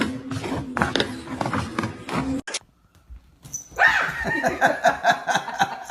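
A steady low hum with scattered clicks that cuts off abruptly, then after a short pause an animal's quick run of short, pitched calls, several a second.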